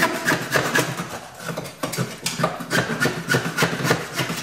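Hand saw cutting through a wooden board with quick back-and-forth strokes, several a second.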